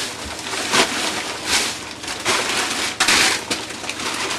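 Rummaging through frozen food packages in a chest deep freezer: a series of crunching, rustling knocks, the loudest about three seconds in.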